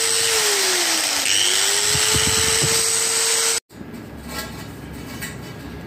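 Bosch GWS 600 angle grinder running with no load, a steady high whine. About half a second in its pitch sags and then climbs back within about a second. The sound cuts off abruptly a little past halfway.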